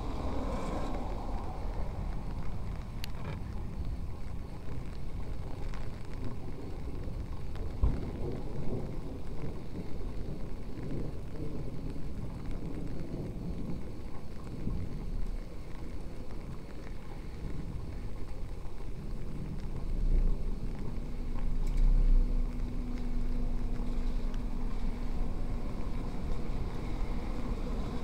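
Street ambience from a walk: a steady low rumble of wind on the microphone and traffic. A passing vehicle's low engine hum swells and fades between about two-thirds and nine-tenths of the way through.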